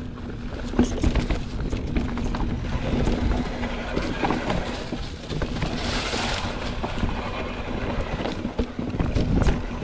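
Specialized Stumpjumper mountain bike being ridden over rough trail: a steady run of knocks and rattles from tyres and frame over rocks and roots, above a low rumble, with a brief hiss about six seconds in.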